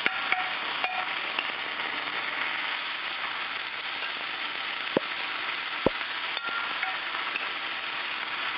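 Marinated beef frying in a hot pan, a steady sizzle, with two sharp clicks about five and six seconds in.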